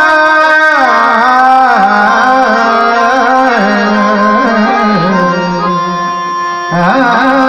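Live bhajan music: a male voice holding long, gliding melodic notes, accompanied by harmonium and tabla.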